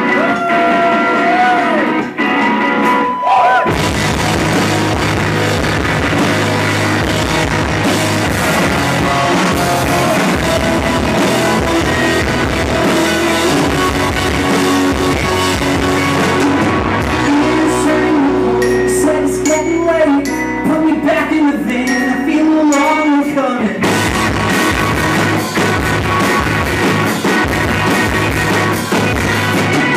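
Live rock band playing loudly on electric guitars and drum kit. It opens sparse, with wavering guitar notes, and the full band comes in about four seconds in.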